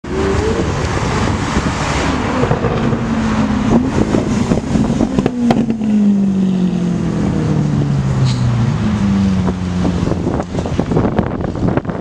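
Lamborghini Aventador LP700-4's 6.5-litre V12 accelerating past, its pitch rising at first and then falling away as it drives by and eases off, with a few sharp pops mixed in.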